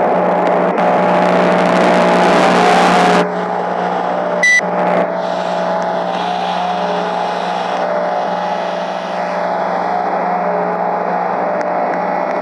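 A machine running with a steady droning hum made of several held tones. A rush of hiss over it cuts off suddenly about three seconds in, and a short sharp beep comes a second or so later.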